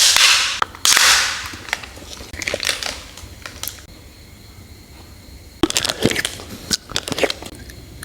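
Plastic packaging of a dessert cup being handled and opened: loud crinkling and tearing for the first second and a half, then scattered sharp plastic clicks and taps, bunched together about six to seven seconds in.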